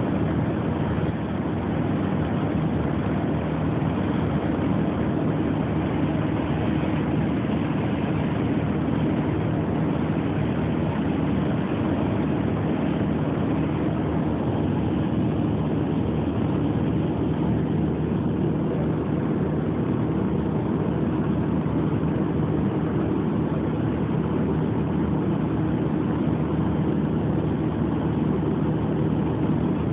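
Light aircraft's piston engine and propeller running at a steady drone in flight, heard from inside the cockpit.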